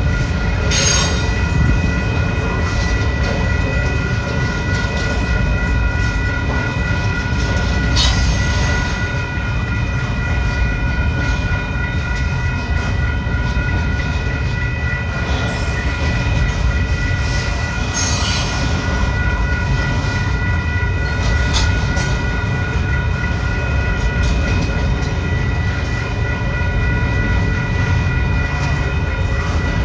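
Double-stack container freight train rolling past: a steady low rumble of wheels on rail, with steady high-pitched squealing tones over it and a few brief, louder clatters.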